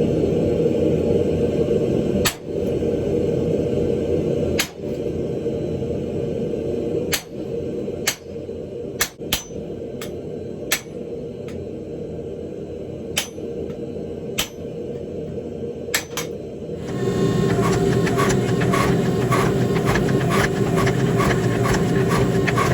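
Hammer blows on hot wrought iron at the anvil over a steady noise: single strikes every second or two, then from about seventeen seconds in a louder run of quick, even blows, about three or four a second, that ring.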